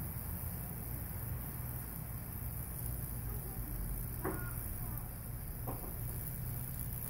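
Rewired microwave oven transformer humming steadily under high-voltage load while the current burns a Lichtenberg figure through wet plywood, with a faint steady hiss from the burning wood. Two short high chirps sound about four and five and a half seconds in.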